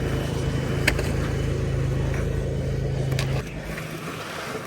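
Motor-vehicle engine running steadily, then dropping to a quieter, lower level about three and a half seconds in, with one sharp click about a second in.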